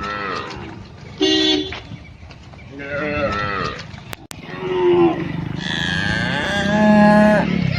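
Cows mooing: a series of about five separate moos, some falling in pitch, the longest lasting about two seconds near the end.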